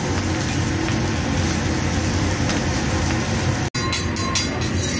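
Lobster tails sizzling on a hot teppanyaki griddle, a steady hiss over a low rumble. Near the end an abrupt cut is followed by a few short clinks.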